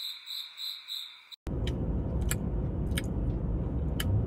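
Cricket chirping, likely an added 'crickets' sound effect: a high, even trill pulsing about three times a second that cuts off abruptly about a second and a half in. After it comes room noise with a few light clicks and knocks.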